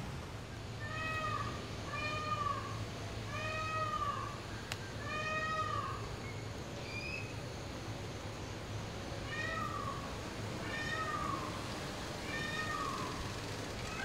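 Peacock calling, a series of loud wailing 'may-awe' calls, each note rising and falling in pitch. They come every second or two, with a short, higher call about seven seconds in and a pause before the last three.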